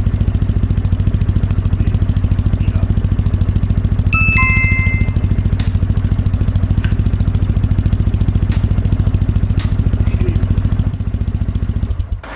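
Kawasaki W650's air-cooled parallel-twin engine idling steadily through an aftermarket POSH full exhaust. A short two-note chime sounds about four seconds in, and the idle drops away near the end.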